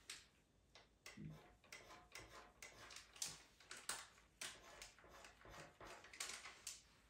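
Pastel pencil scratching across pastel mat paper in quick, short strokes, about two or three a second, as fur is laid in. The strokes are faint.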